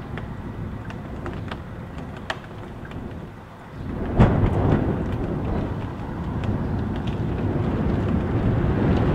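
Rain heard from indoors, with scattered sharp drip ticks. About four seconds in, a strong gust of wind strikes the house with a sudden hit, and a louder, low rushing rumble carries on after it.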